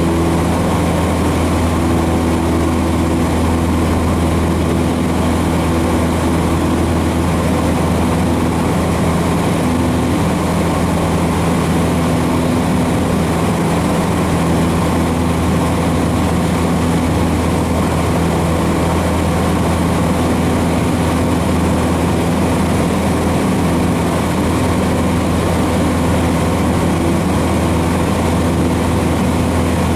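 Cessna 150's four-cylinder air-cooled engine and propeller running steadily at climb power, a constant low drone heard inside the cabin.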